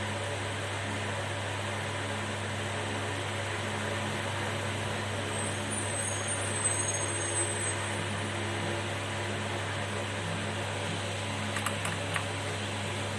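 Steady whir of an electric fan with a low electrical hum underneath, and a few faint ticks near the end.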